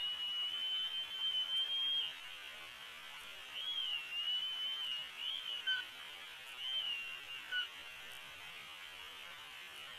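Bald eagle calls slowed to quarter speed, heard as drawn-out thin whistling notes over a steady hiss. One long held note opens, and two groups of wavering notes follow that rise and fall, the last near the middle.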